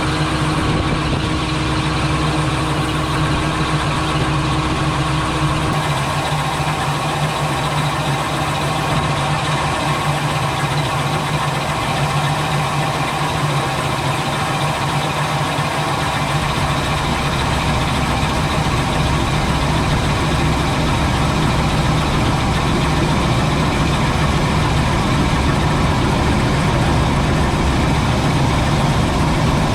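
New Holland TR89 combine harvester running steadily while harvesting oats, a constant heavy engine and machinery drone. A steady higher tone in it drops away about six seconds in.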